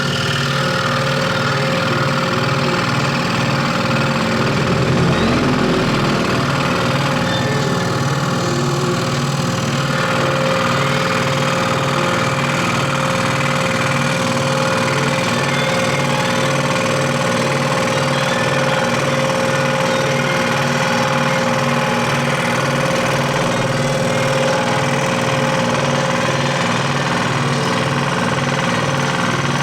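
AF-eco1 electric scroll saw running steadily, its blade reciprocating, with a low even pulsing hum and a steady higher whine.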